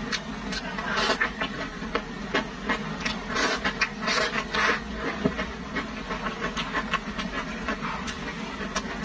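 Noodles slurped with chopsticks in two hissing sucks, about three and a half and four and a half seconds in, amid close-up chewing and many sharp mouth clicks.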